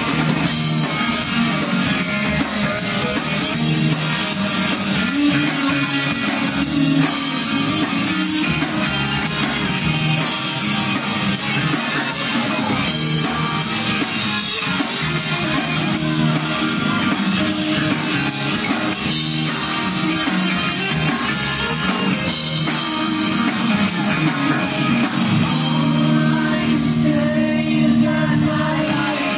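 A rock band playing a song with guitar, drums and a singer.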